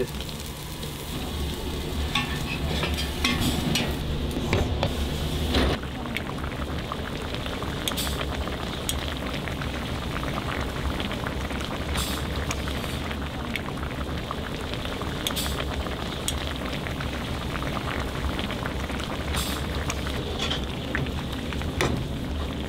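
Food cooking on a hot kitchen stove: a rolled egg omelette sizzling on a flat iron griddle with a metal spatula scraping and tapping, then, from about six seconds in, a pan of kimchi stew with pork boiling hard while a ladle stirs it. A steady low hum runs underneath.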